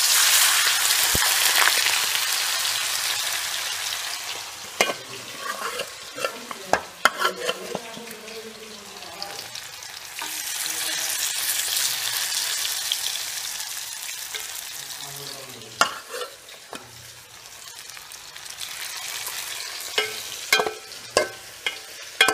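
Marinated chicken pieces deep-frying in hot oil in a kadai: a loud sizzle that starts as they go in, slowly fades, then swells again for a few seconds in the middle. A slotted metal spoon clinks against the pan several times as the pieces are stirred.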